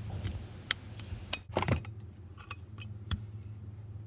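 Snap-ring pliers and a steel C-clip clicking and ticking against a 6.0 Powerstroke turbo's bearing housing as the clip is worked into its groove to hold the cap in place: a handful of short sharp clicks, the loudest in the middle, over a steady low hum.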